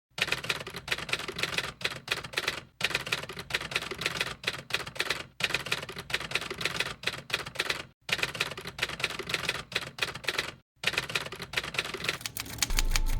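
1927 Underwood manual typewriter being typed on: quick, uneven runs of key strikes clacking against the platen, broken by short pauses.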